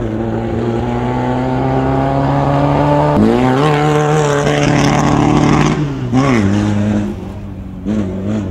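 An off-road race vehicle's engine running hard as it goes by at speed. Its pitch steps up about three seconds in and falls away just after six seconds as it passes.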